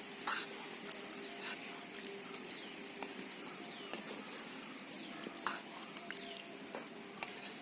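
Beef curry simmering in a stone cooking pot: scattered small pops and crackles of the bubbling masala gravy over a steady hiss.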